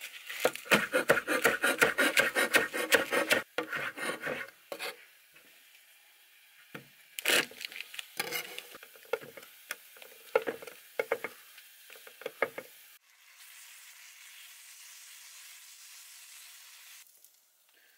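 A chef's knife chopping fast on a wooden cutting board for about four seconds, then slower, scattered cuts on the board. Then a steady sizzle of ground beef and beans frying in a cast iron skillet, which cuts off shortly before the end.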